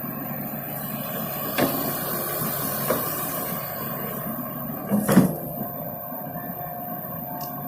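Komatsu excavator's diesel engine running steadily, with a few sharp knocks; the loudest comes about five seconds in.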